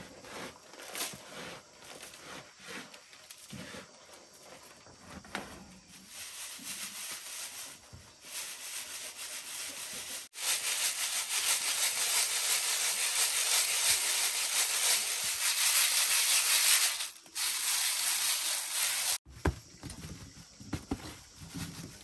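Cracked corn being shaken through a woven bamboo sieve: a steady rustling hiss of grits showering into the basket below, starting abruptly about ten seconds in and stopping sharply about nine seconds later. Before and after it, lighter scattered rustles and taps of hands working the grain in bamboo baskets.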